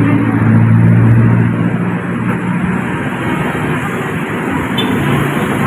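A motor vehicle's engine running close by, a steady low hum that is loudest in the first two seconds and then eases, over a constant background of street noise.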